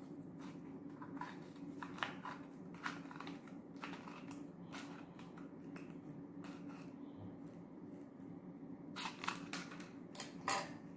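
Scissors snipping through a rolled paper tube in a series of short, separate cuts, the loudest few near the end.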